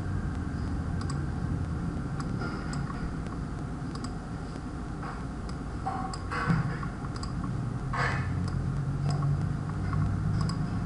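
Scattered computer mouse clicks, short, sharp and irregular, over a steady low background hum.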